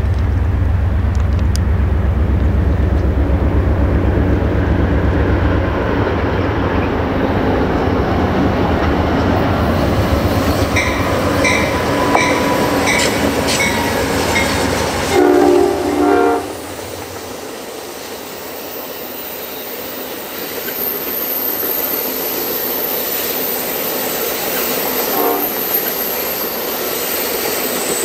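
Amtrak GE Genesis diesel locomotives pass close by with a heavy engine rumble, and their horn sounds one short blast about fifteen seconds in. The bi-level passenger cars then roll past with rhythmic wheel clicks on the rail joints and a high, steady wheel squeal.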